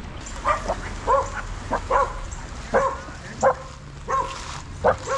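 A puppy yipping and whining in a run of about eight short, high-pitched cries, spaced under a second apart.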